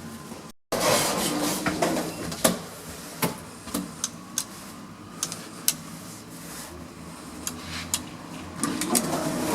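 Lift machinery running: a steady low hum with many sharp clicks and knocks. There is a louder rushing noise about a second in and again near the end.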